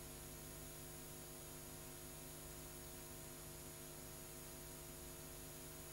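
Faint, steady electrical hum with a light hiss, the background noise of the soundtrack with nothing else sounding.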